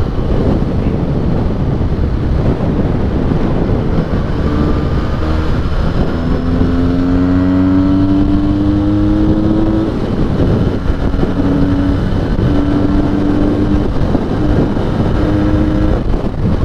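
Benelli 302S's parallel-twin engine through its stock exhaust while riding. Its note rises steadily for a few seconds as it pulls through a gear, then holds steadier notes broken by brief dips, over heavy wind rumble on the microphone.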